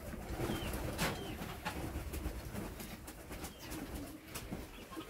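Pigeons cooing again and again, with a couple of sharp knocks as the milker bucket's lid and hose are handled.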